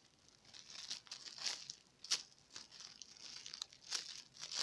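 Clear plastic bag around a squishy toy crinkling and rustling as it is handled, in irregular bursts with a few sharper crackles.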